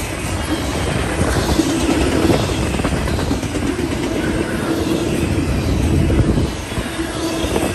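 Double-stack intermodal freight cars rolling past close by: a steady rumble and clatter of steel wheels on the rails, with a faint held tone underneath.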